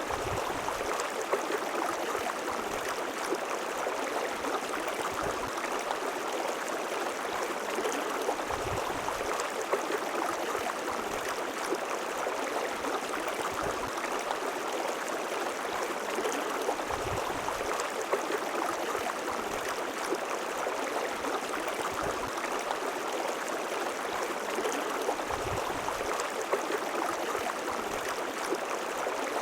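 River water flowing and gurgling over rocks, a steady rushing noise.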